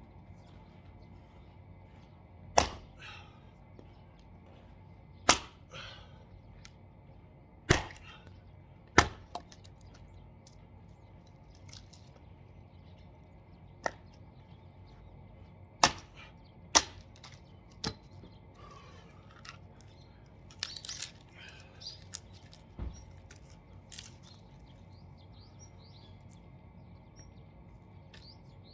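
Axe splitting firewood: a series of sharp, loud cracks as the blade strikes and splits log rounds, a few seconds apart, with a quicker run of smaller knocks near the end.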